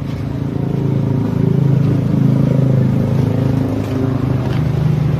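Toyota Vios petrol engine running, rising in speed over the first two seconds and then holding steady. The engine has a knock that the mechanic traces to a worn, deformed connecting rod bearing.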